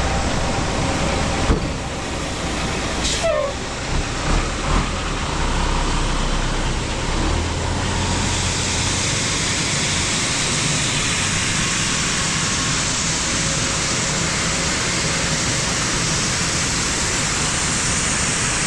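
John Deere farm tractor running, with a steady engine noise. In the first five seconds there is a sharp click, a short falling squeak and a few dull thumps. From about eight seconds in, a steady hiss takes over and the low engine sound fades back.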